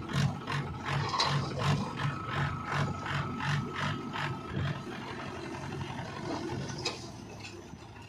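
Mahindra 475 DI tractor's diesel engine running while its hydraulic tipping trailer raises and dumps a load of soil. A rhythmic metallic rattle, about three strokes a second, goes with it and dies away about five seconds in, leaving the steady engine sound.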